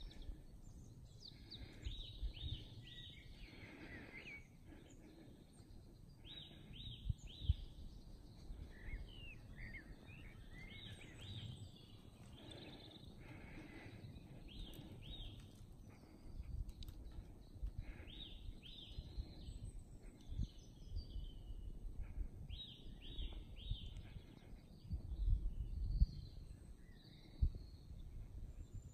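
Songbirds singing in short phrases of three or four quick high notes that fall in pitch, repeated every few seconds, over a low rumble of wind on the microphone.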